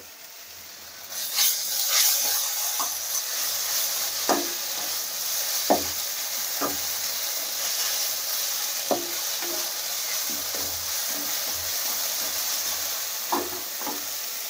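Ginger-garlic paste frying with sautéed onions in a metal kadai: a steady sizzle that starts about a second in as the paste is stirred into the hot oil. A spatula knocks and scrapes against the pan now and then.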